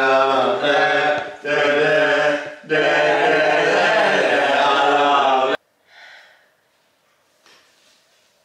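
A group of men's voices chanting loudly together, cutting off abruptly about five and a half seconds in and leaving near silence.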